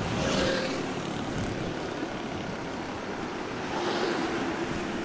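Steady rush of city traffic from the road beside the stream, a constant even noise.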